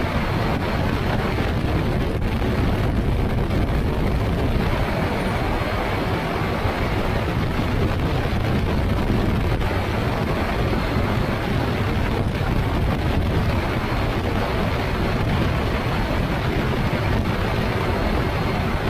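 Weight-shift microlight trike's pusher engine and propeller running steadily in cruise, mixed with heavy wind noise on the wing-mounted microphone.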